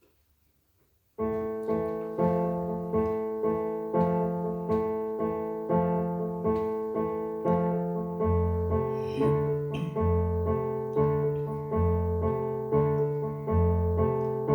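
Piano playing the introduction to the song, an evenly pulsed pattern of repeated chords that starts about a second in after silence. Lower bass notes join about halfway through.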